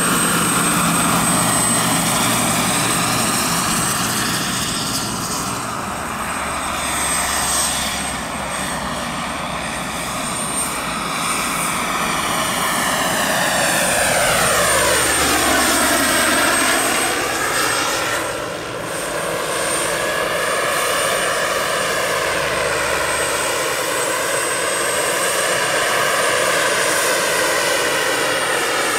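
Turbine-powered large-scale model Mil Mi-24 helicopter flying, its Taurus turbine giving a steady high whine over the rotor noise. The tone swoops down and back up around the middle.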